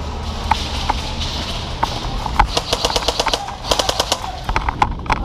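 Airsoft guns firing: scattered single shots, then two rapid full-auto bursts, about two and a half seconds in and again near four seconds.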